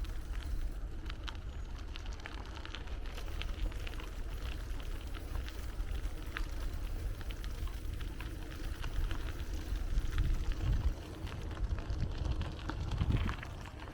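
Riding a bicycle: a low, buffeting wind rumble on the microphone with a scattered crackle of small ticks from the tyres rolling over the path.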